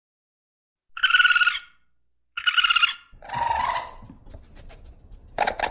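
Two short, high, quavering trill calls about a second apart, then a rougher run of chittering calls and clicks over a low rumble, the calls of a small mammal.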